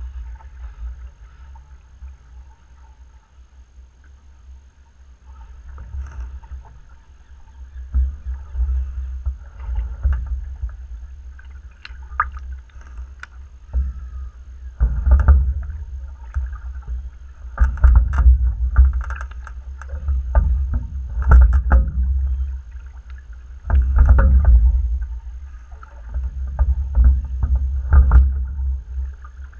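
Fluidesign single scull being rowed: a steady low rumble through the hull, with a burst of splashing and sharp clunks from the oars and oarlocks about every three seconds, one burst per stroke. The strokes are quieter for the first few seconds.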